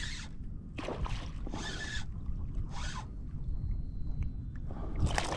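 A hooked snook fighting the line beside a kayak: four short hissing bursts over a steady low rumble.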